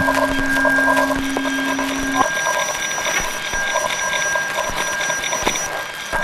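Rapid, rhythmic electronic beeping like an alarm clock, over steady high held tones. A low hum drops out about two seconds in.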